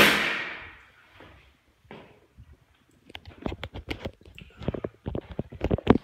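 A sneeze bursts out at the start and fades over about a second. From about three seconds in, a quick, irregular string of clicks and knocks follows.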